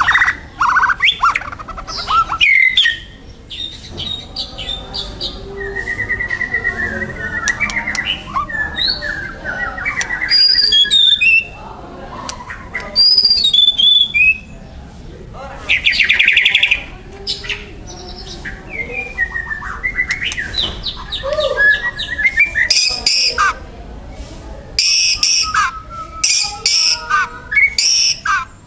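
White-rumped shama singing loudly and excitedly: a fast, varied run of clear whistles, rising and falling glides and chirps, broken by harsh rattling chatter, with a burst of repeated rattles near the end. This song is typical of an agitated, provoked shama.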